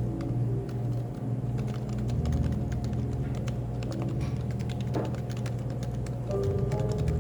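Typing on a Happy Hacking Keyboard (HHKB): a continuous run of quick keystroke clicks, with background music playing underneath.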